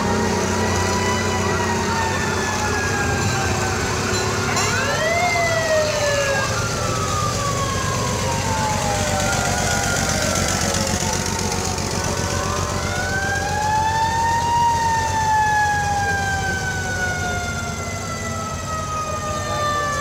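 Sirens on antique fire trucks winding up and slowly falling away, several at once at different pitches, over the low running of the trucks' engines. One siren winds up about five seconds in and another about thirteen seconds in, each falling slowly for several seconds.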